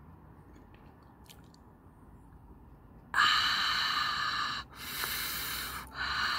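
A woman's breath hissing loudly through her mouth, starting about three seconds in, in three long breathy hisses with short breaks between them. It is the sucking and blowing of air that cools a mouth burning from very spicy noodles.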